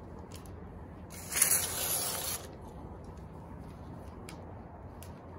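Adhesive weather-strip tape being pulled free with a ripping hiss, lasting about a second, starting about a second in.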